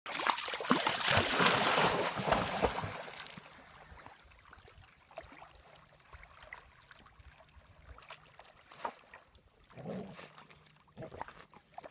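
Water splashing and churning for about the first three seconds, then mostly quiet with faint scattered splashes from a dog swimming after a goose on a pond.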